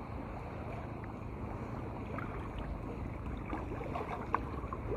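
Small sea waves washing against shore rocks, with a low wind rumble on the microphone. A few faint ticks come in the second half, one sharper tick about four seconds in.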